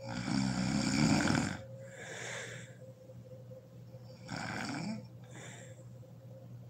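A sleeping woman snoring: a loud snore lasting about a second and a half, then a breathy breath, then a second, quieter snore about four seconds in, also followed by a breath.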